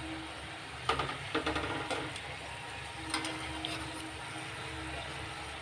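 Gujiyas deep-frying in desi ghee, with a steady sizzle over a low rumble. A wire skimmer clinks and scrapes against the metal pot in a cluster of sharp clicks about a second in, and again briefly around three seconds.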